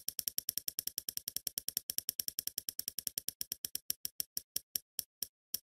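Spinning prize-wheel ticking sound effect: sharp clicks, about ten a second at first, slowing steadily to a few a second as the wheel coasts toward a stop.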